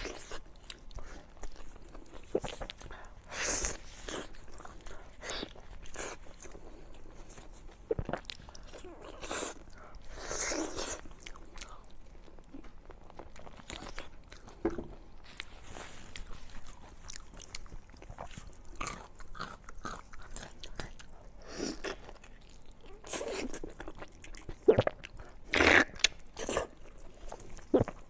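Close-miked eating of beef bone meat: irregular bites, crunches and chewing, with a run of louder crunches about 25 seconds in.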